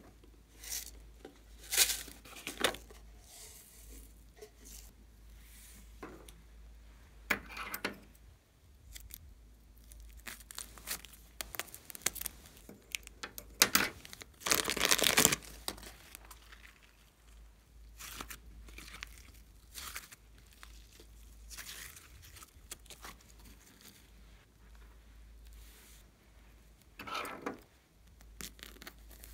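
Plastic piping bags filled with slime crinkling and rustling as hands handle and squeeze them, in irregular bursts with the longest about halfway. Near the end there is a scissor snip through the bag's tip.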